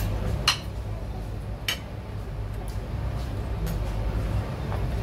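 Cutlery clinking against plates during a meal: a few sharp clinks, the loudest about half a second in and another a little later, over a steady low hum of a restaurant dining room.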